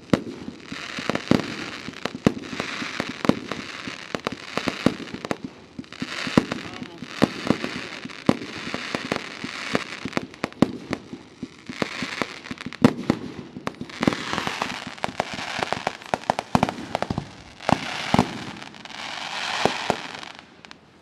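Fireworks display: a dense, irregular string of bangs from bursting shells, several a second, with stretches of crackling hiss between them.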